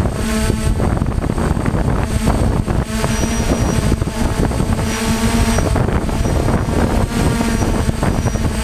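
DJI F550 hexacopter's six electric motors and propellers buzzing steadily as it hovers in GPS position hold, heard close up from a camera on the frame. The pitch wavers a little as the motors make small corrections.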